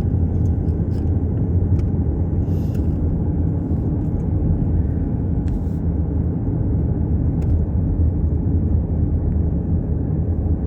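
Steady low rumble of a car being driven, engine and tyre noise on the road, with a few faint scattered clicks.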